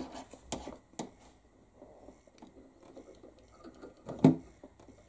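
Small clicks and light handling noises as a wire and a bullet connector are set in a metal helping-hands clamp for soldering. About four seconds in there is one louder, short knock-like sound.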